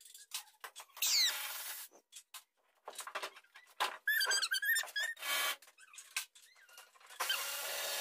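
Shop vac nozzle sucking at the car's interior in short bursts of rushing air, with squeaky whistling chirps as the nozzle seals against surfaces.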